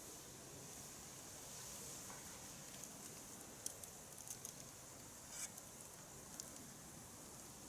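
Faint crackling of a wood campfire: scattered sharp pops, a cluster of them around the middle, over a steady high hiss.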